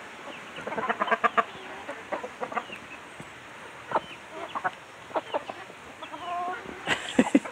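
Chickens clucking while they feed: a quick flurry of short calls about a second in, then scattered clucks and a longer call near six seconds. A few sharp knocks near the end.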